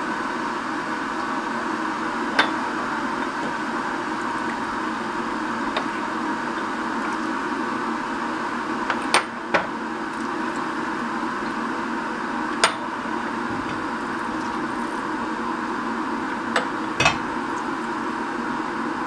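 Small glass jars clinking sharply, about six times, as they are handled and filled with boiled milk, over a steady mechanical hum.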